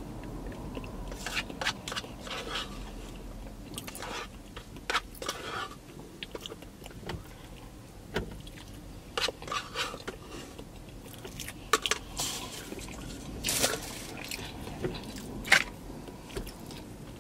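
Close-up eating of fried chicken: irregular crisp crunches and bites with chewing in between.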